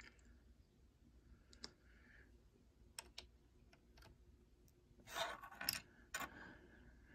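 Small plastic clicks of Lego minifigure parts being popped off and pressed back on: a few single clicks, then a louder cluster of clicks with a brief scrape about five seconds in.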